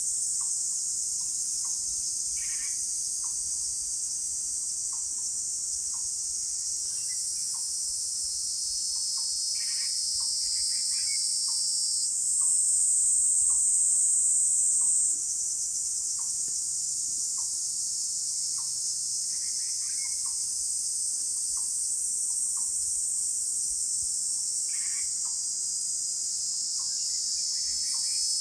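Chorus of singing insects, a steady high-pitched drone that grows louder for about three seconds near the middle, with a soft low tick about once a second.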